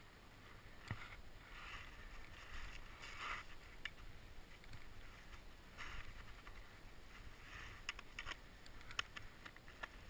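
Skis shuffling and scraping on firm snow in short hisses, with several sharp clicks from a ski pole tapping the snow crust.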